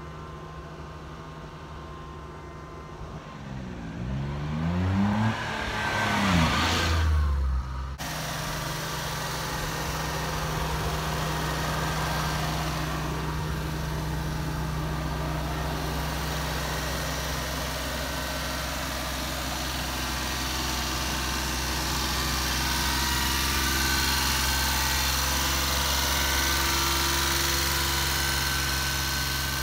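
A 1992 Suzuki Carry kei dump truck's 657 cc F6A engine. In the first few seconds it rises and falls in pitch. After a sudden cut about eight seconds in, it runs steadily while the tipper bed is raised on its hydraulic hoist, growing a little louder and changing pitch near the end.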